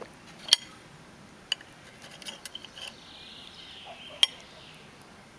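Metal fork clinking and scraping against a ceramic plate as food is cut and lifted, with a sharp clink about half a second in, a few lighter taps in the middle, and another sharp clink just after four seconds.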